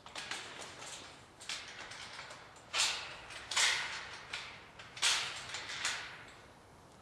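Steel mesh kennel panels of expanded metal and welded wire rattling, scraping and knocking as they are handled and joined with drop-in connecting pins. The loudest scrapes come about three, three and a half and five seconds in.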